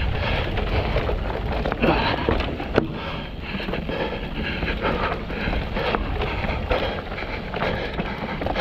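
Mountain bike riding down a rough, rocky trail: tyres rolling over rock with constant rattling and frequent sharp knocks from the bike, over a low rumble of wind on the microphone.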